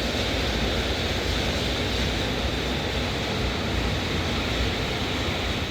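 Rain falling steadily: an even rushing hiss that does not let up, the start of a heavy downpour.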